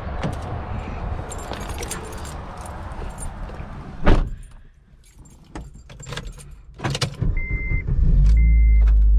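A car door shuts hard about four seconds in, followed by keys jingling and a dashboard chime beeping about once a second. Near the end, the Acura RSX's four-cylinder engine (the 2006 Type S's, with a short ram intake and GReddy exhaust) starts and settles into a steady low idle, still cold.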